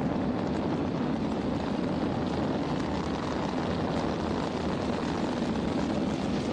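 Space shuttle launch: the main engines and solid rocket boosters give a steady, dense rumble as the vehicle climbs off the pad.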